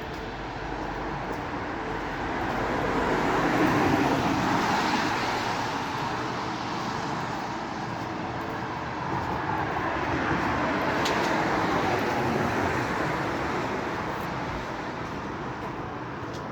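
A broad rushing, rumbling noise outdoors, heard as coming from the sky, that swells and fades twice: loudest about four seconds in and again around eleven seconds, with faint steady tones under it.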